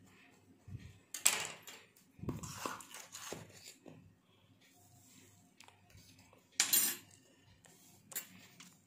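Metal knife and spoon clinking and scraping against a ceramic plate as a lemon is mashed and baking soda is spooned onto it. A few separate clinks and scrapes, the loudest about a second in and again near seven seconds.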